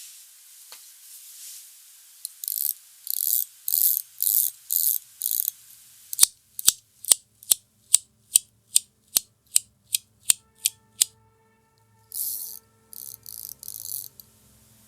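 A 3-in-1 metal fidget toy clicking: six short bursts of rapid ratchet-like clicking, then about a dozen single sharp clicks, two to three a second, then a few more bursts of rapid clicking near the end.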